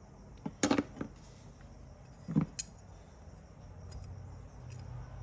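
Small metal parts of a seatbelt retractor mechanism clicking and knocking as they are handled. There is a quick cluster of clicks about half a second in, two more sharp clicks about two and a half seconds in, and then a few faint ticks.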